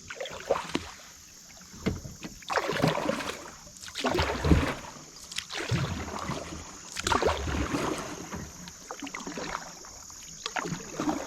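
Kayak paddle strokes splashing in shallow creek water, one stroke every second and a half or so, with a few sharp knocks among them.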